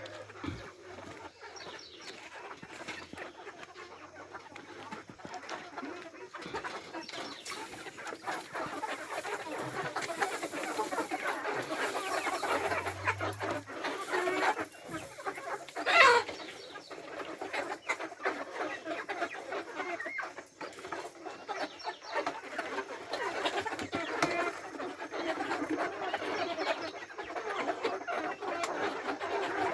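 A flock of Embrapa-breed hens clucking continuously, thick and overlapping, as they gather at their feed. About halfway through, one hen gives a single loud squawk.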